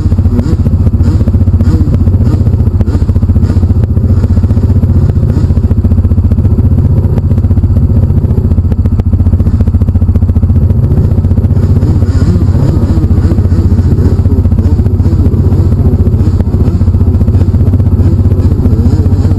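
Bennche BigHorn 700 side-by-side's engine running steadily at idle, heard from inside its cab as a loud, constant low drone.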